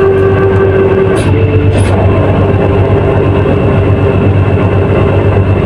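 Fishing vessel's engine running with a steady, loud low drone and a constant hum; a couple of light clicks in the first two seconds.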